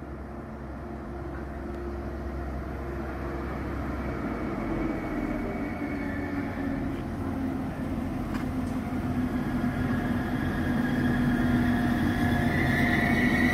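Trenitalia ATR 220 diesel multiple unit approaching, its engine drone growing steadily louder as it nears. A high-pitched squeal starts near the end as the train comes into the stop.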